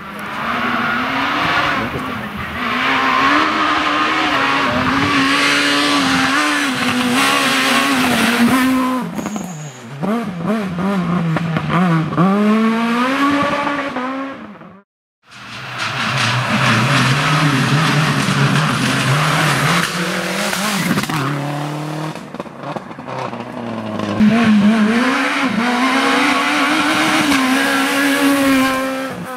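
Rally car engines at full throttle, revving up and falling in pitch through gear changes as the cars drive by. The sound cuts out completely for a moment about halfway through. Near the end a Renault Clio S1600's high-revving engine comes through, then drops in pitch as it passes.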